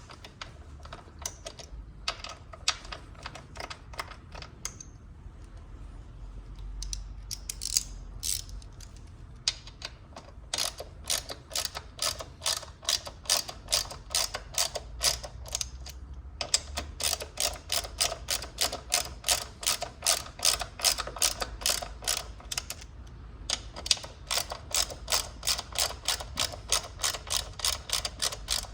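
Hand socket ratchet clicking in quick, even runs of about three to four clicks a second as bolts are wound in, with brief pauses between runs and a few scattered clicks before the first run.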